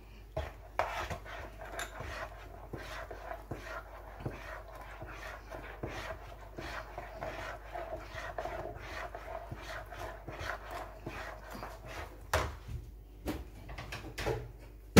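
Metal spoon stirring thick sweet potato pudding batter in a plastic bowl, a steady wet swishing and scraping as the sugar is mixed in. A few knocks of the spoon near the end.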